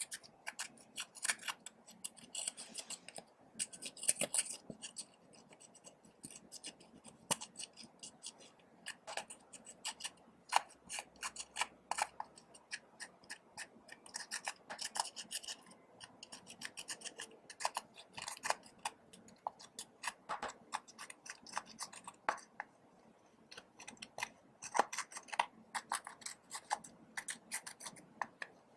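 Slime being mixed and worked by hand: dense, irregular sticky clicks, crackles and scratches.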